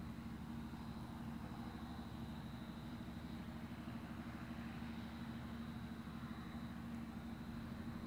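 John Deere combine harvester running steadily as it harvests wheat: a continuous engine and machinery hum, with a thin, steady high whine above it.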